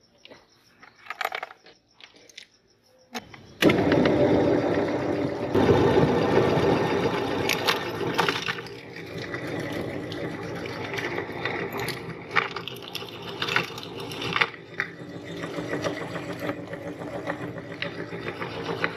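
A few light taps of chalk sticks being handled, then an electric meat grinder's motor switches on suddenly about four seconds in and runs steadily with a motor hum and intermittent clicking and rattling.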